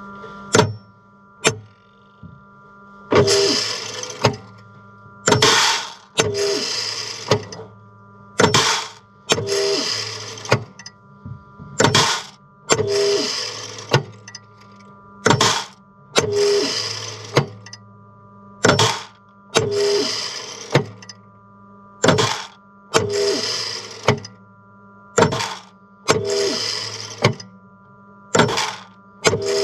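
Grain moisture meter working a harvest sample: a sharp crack followed by a short rasping rattle, repeating roughly once a second, over a steady hum.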